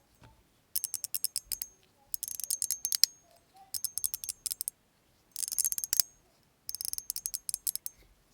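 A DJG mechanical fan fidget slider being worked back and forth, its mechanical detents giving about five separate bursts of rapid ratcheting clicks, each about a second long. The action is not the smoothest or most satisfying to hear.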